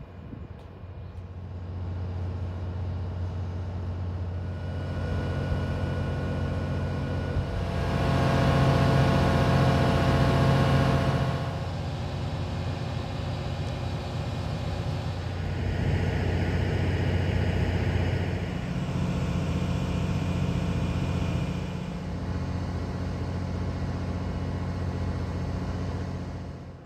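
A train's engine running steadily with a low, even hum, swelling louder twice, most strongly about a third of the way through.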